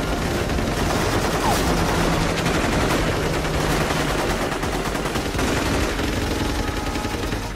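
Heavy automatic gunfire from several weapons at once, a steady unbroken barrage of rapid shots in a film battle soundtrack.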